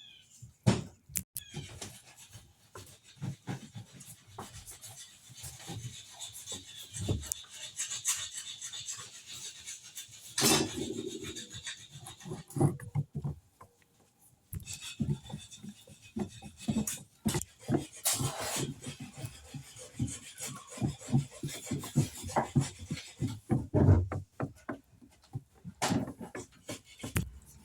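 Irregular rasping, scraping strokes on a hard surface, with a few sharper knocks in between and a brief pause about halfway through.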